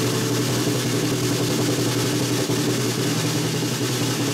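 A steady mechanical hum, like an engine idling, with a constant hiss over it, unchanging throughout.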